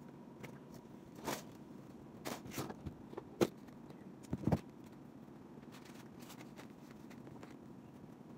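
Handling noises from a pair of white Reebok sneakers being picked up and set down on a table: a few scattered knocks and light rustles, the sharpest about three and a half and four and a half seconds in, over a steady low room hum.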